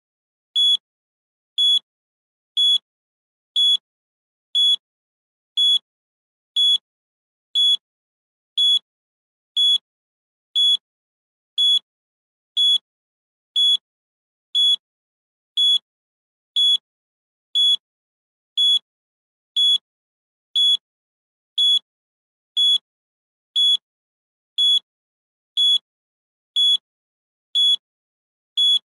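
Countdown timer's electronic beep: one short, high-pitched beep every second, evenly spaced, with silence in between.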